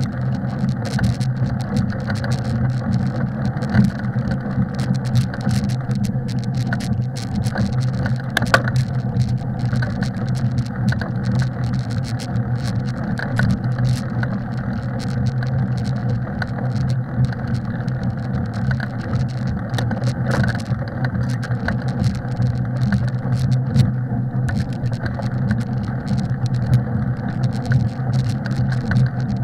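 Bicycle riding along a packed snowy trail: a steady low hum with scattered rattles and knocks.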